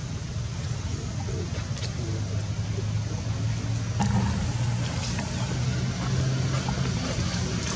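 Steady low engine hum of a motor vehicle running, with a few faint clicks over it.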